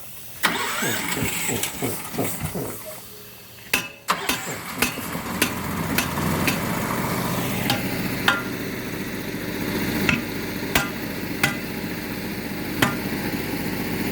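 Hammer blows on the steel lock ring of a multi-piece wheel, about a dozen sharp ringing strikes at uneven spacing, seating the ring so it locks in place. An engine runs steadily underneath.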